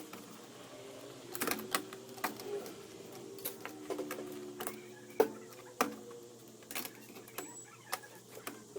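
Scattered light clicks and taps, about a dozen spread irregularly, over a faint steady hum.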